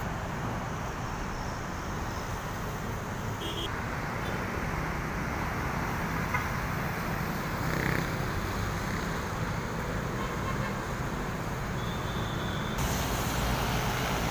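Steady road traffic noise from cars and vans passing on a multi-lane highway below, a little louder near the end.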